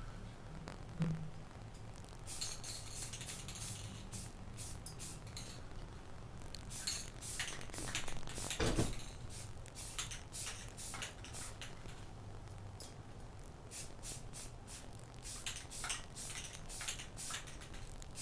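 Aerosol spray-paint can hissing in many short bursts, with a couple of knocks from handling the can or part, the loudest a little before halfway.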